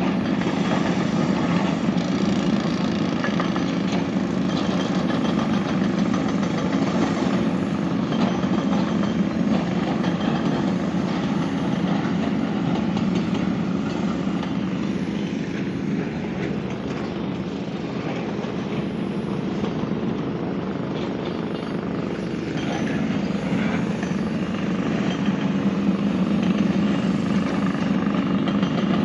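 Heavy diesel engine of a large construction machine running steadily at a loud level, easing off somewhat about halfway through and then picking up again.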